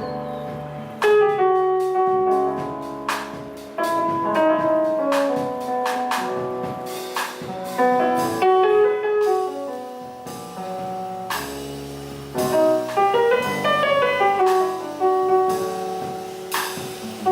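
Jazz piano playing: a run of chords and melody notes with sharp attacks and ringing sustained tones, moving at an irregular, phrase-like pace.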